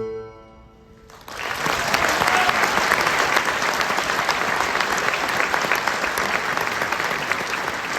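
An electronic bagpipe drone, a steady chord with many even overtones, dies away in the first half-second. After about a second's lull, an audience bursts into applause that carries on.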